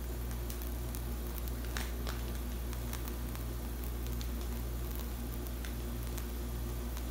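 Steady low hum with a few faint clicks, under quiet piping of whipped cream from a pastry bag.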